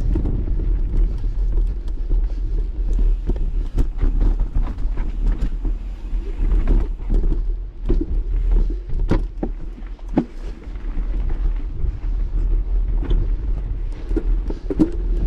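Strong wind gusting through a forest and buffeting the microphone as a loud, uneven low rumble, with scattered short knocks and cracks.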